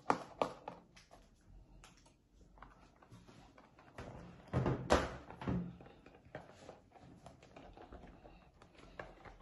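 Handling noise: scattered taps, knocks and rubbing as rubber dinosaur hand puppets are worked over a table beside cardboard toy boxes, with a louder cluster of knocks about halfway through.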